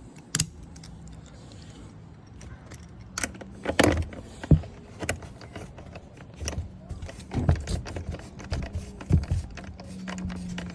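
Scattered clinks and knocks of metal hand tools: a socket and extension being handled and fitted onto an exhaust mounting bolt.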